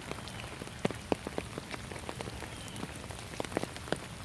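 Rain falling, with irregular drops pattering and ticking on surfaces.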